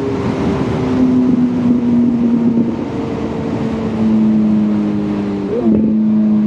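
Motorcycle engine running while riding, its revs slowly sinking, then a quick rise and drop in revs about five and a half seconds in, over steady wind rush.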